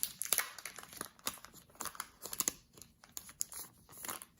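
Plastic packaging and paper crinkling and rustling in irregular short crackles and clicks, as the items of a sticker pack are handled.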